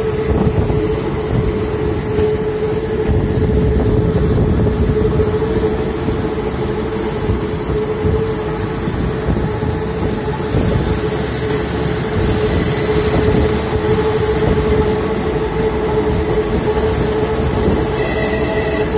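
Train running steadily, heard from inside the carriage: a continuous rumble of the wheels on the track with a steady whine held under it. A brief higher tone sounds near the end.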